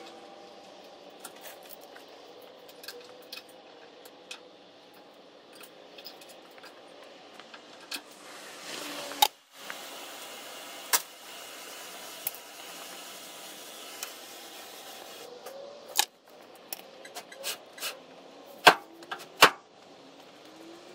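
Scattered metallic clicks, clinks and taps of hand tools working on truck hardware, ending in two sharp knocks near the end.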